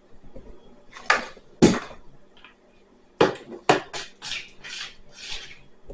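A utensil knocking and scraping against a bowl as slime is stirred: a quick, uneven run of about eight sharp knocks and short scrapes.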